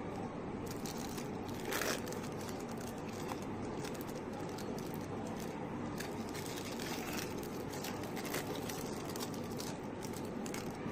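Plastic film crinkling in short rustles and crackles as processed cheese slices are peeled out of their wrappers, with one louder crinkle about two seconds in, over a steady background hum.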